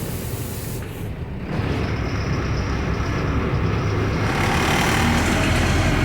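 Bus engine running steadily while the bus is driven, with road noise building about four seconds in.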